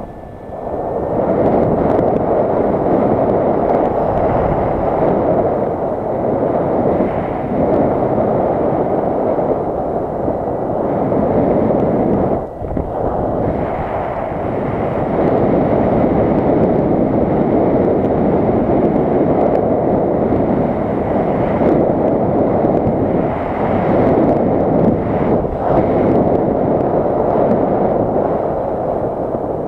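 Loud, gusting rushing noise of wind buffeting the microphone, swelling and easing throughout, with a brief lull about 12 seconds in.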